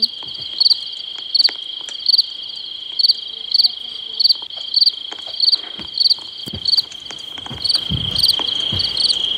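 Cricket ambience from a video game's night scene: a steady high trill with a louder chirp repeating about every two-thirds of a second. A few low thuds come in the last few seconds.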